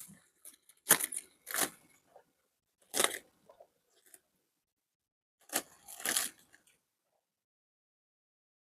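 Grass carp splashing and gulping at the water's surface as they are fed, in about five short, sudden bursts.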